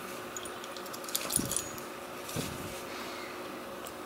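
Small metallic clicks and clinks of a pin-tumbler lock and picking tools being handled as the lock is taken apart, with two soft knocks about a second and a half and two and a half seconds in.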